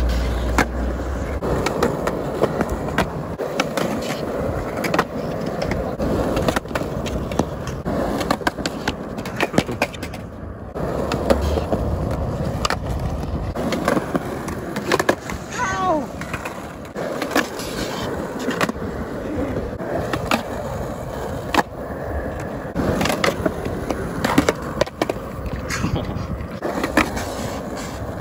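Skateboard wheels rolling on concrete, with repeated sharp clacks of the tail popping, the board hitting the concrete ledge and landing, and scrapes of the board on the ledge as tricks are tried over and over.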